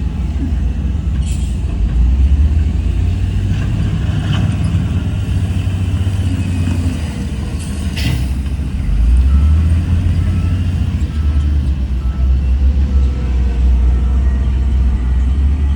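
Heavy diesel earthmoving machinery running with a deep, steady rumble that grows louder about nine seconds in. A brief sharp noise comes about eight seconds in, and faint reversing beeps start near the end.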